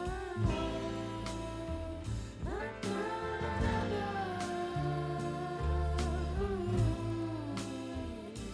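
Music with a sung vocal line over bass, guitar and drums, from the rock song being reacted to.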